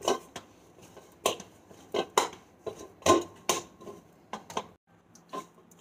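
Dough being kneaded by hand in a stainless steel bowl: irregular thuds, about two a second, as the stiff dough is pressed and turned against the bowl, some leaving a brief metallic ring. The thudding stops about five seconds in.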